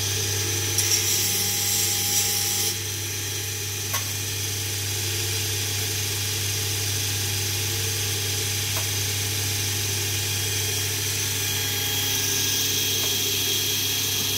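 A workshop belt grinder's electric motor running steadily with a constant hum. There is a brief hiss about a second in, and a few light knocks of metal parts being handled.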